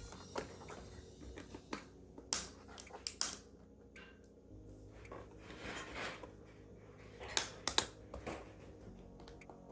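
Sharp plastic clicks and snaps, a handful spread over several seconds with two close pairs, as a laptop keyboard is pried up and its retaining tabs release from the top case.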